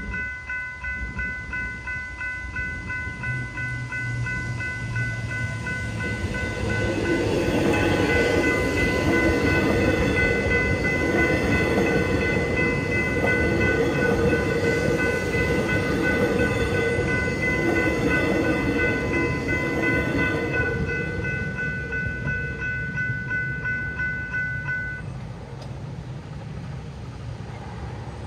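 General Signals Type 3 electronic level crossing bells ringing in a fast, steady pulse while a Metro X'Trapolis electric suburban train passes over the crossing. The train builds up, is loudest in the middle, then fades, and the bells stop a few seconds before the end once the train has cleared.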